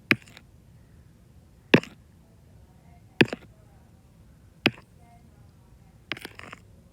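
Fingertip taps on a phone screen: four sharp taps about a second and a half apart, then a quick cluster of taps near the end.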